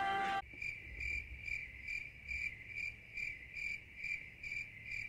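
Cricket chirping sound effect: a steady run of high chirps, about two and a half a second, cutting in abruptly after a brief end of guitar music. It is the stock 'crickets' cue for an awkward silence.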